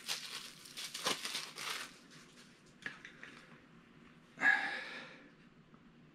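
Packaging crinkling and rustling as a Funko Soda can is opened and its contents handled: dense crinkling for about the first two seconds, then only scattered rustles, with one short, louder rasp about four and a half seconds in.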